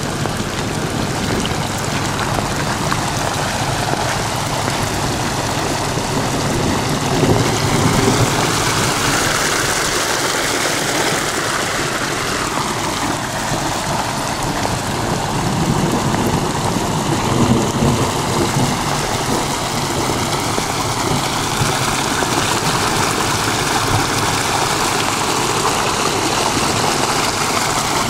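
Heavy rain falling with muddy runoff water running through a washed-out channel in a gravel road: a steady, even noise.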